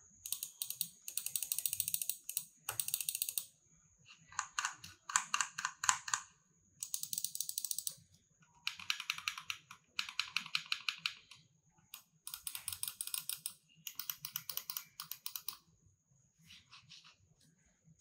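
Wings Crosshair 100 wired gaming mouse buttons clicking in quick runs of rapid clicks, each run lasting about half a second to a second and a half, with short pauses between runs.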